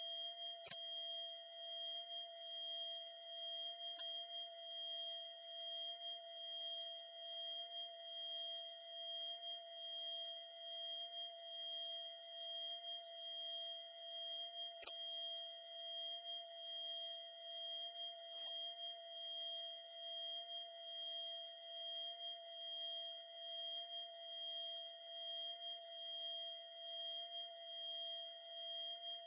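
Anti-dog whistle sound effect: a steady, very high-pitched electronic tone held without a break, with a few faint clicks.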